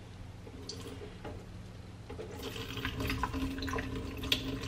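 Adlai (Job's tears) grains being rinsed in water in a rice cooker pot, stirred by hand. About two seconds in it gets louder as the cloudy rinse water is poured off into a stainless steel sink, with small clicks and splashes.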